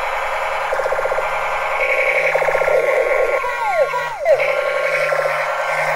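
Battery-operated toy MP5 smoke gun playing its electronic firing sound effects: a rapid machine-gun rattle, then several falling whistling tones ending in a sharp blast, over a steady low hum.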